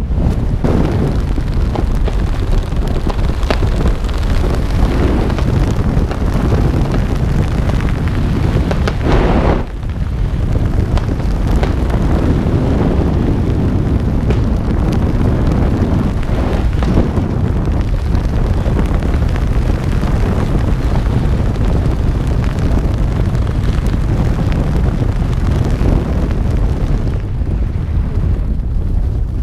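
Strong wind rushing over a camera microphone during a parachute descent under an open canopy: a steady, loud, low rumble with a brief dip about nine and a half seconds in.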